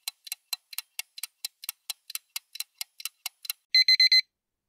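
Countdown-timer ticking sound effect, even sharp ticks about four a second, marking the seconds running out for a quiz answer. Near the end the ticking stops and a digital alarm-clock beep sounds in a quick burst of rapid high beeps, signalling that time is up.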